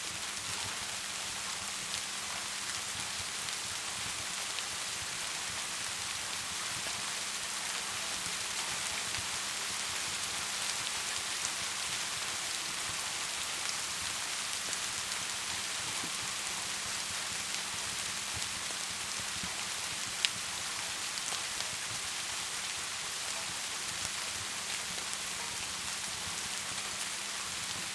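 Rain and a crackling log fire: an even, steady hiss with scattered small crackles and one sharp pop about twenty seconds in.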